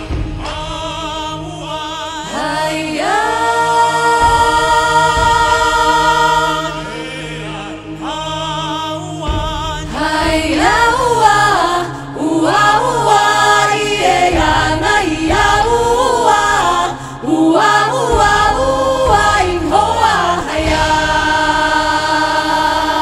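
A vocal group singing with music. Several voices hold long notes together with vibrato for a few seconds, then move into a quicker melody over a steady bass line.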